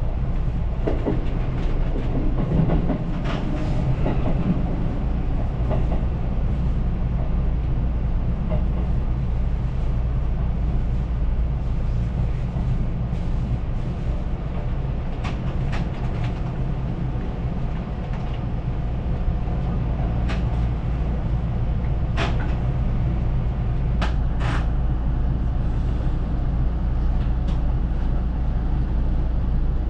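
Electric train running, heard from inside at the front of the car: a steady low rumble with occasional sharp clicks from the wheels on the track, bunched in the second half.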